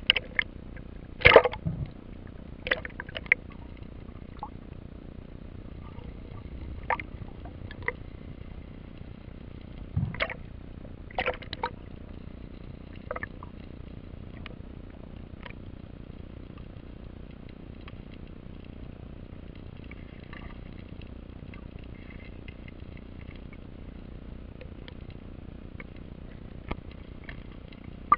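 Underwater ambience picked up by a submerged camera: a steady low rush with scattered sharp clicks and knocks, most of them in the first half.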